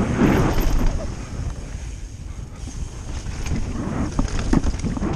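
Wind rushing over the microphone and knobby tyres rolling on a dirt trail as a mountain bike descends at speed, with sharp rattles and knocks from the bike over rough ground near the end.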